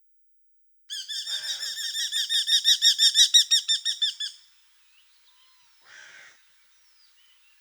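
Eurasian hobby calling: a rapid run of sharp repeated notes, about seven a second, growing louder and then breaking off after some three and a half seconds. A brief faint sound follows about six seconds in.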